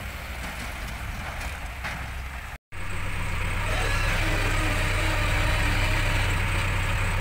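Diesel engine of a JCB 3DX backhoe loader running while it works. After a sudden break about two and a half seconds in, a louder, steady engine hum carries on.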